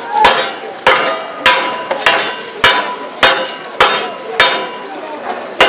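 Metal being struck in a steady rhythm, about three blows every two seconds, each blow ringing.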